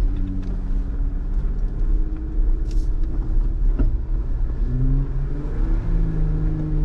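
A 4x4's engine and drivetrain run with a steady low rumble as it drives along a dirt trail, heard from inside the cab. There is a single knock or rattle about four seconds in, and the engine note changes about five seconds in.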